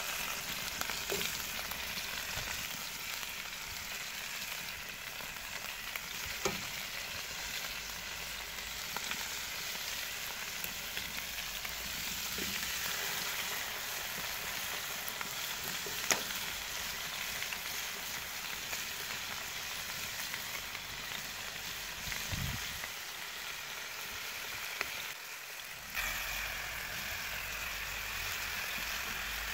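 Seasoned chicken wings sizzling steadily as they fry in hot oil in a large steel pan, with a few sharp clicks.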